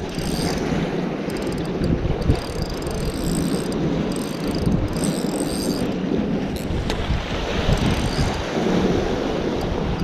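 Strong wind buffeting the microphone, with waves washing over sea rocks underneath.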